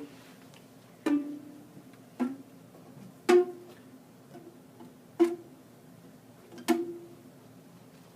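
Rubber bands stretched over the cups of a homemade bongo-and-guitar instrument, plucked one at a time: five twangy plucks spaced about one to two seconds apart. Each pluck rings briefly, and the pitch changes from pluck to pluck as different bands are played.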